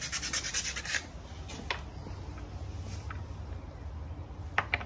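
Quick back-and-forth sanding strokes of a small starter part rubbed on abrasive paper, stopping about a second in. A few light clicks and taps of parts on the workbench follow, with two sharp clicks near the end.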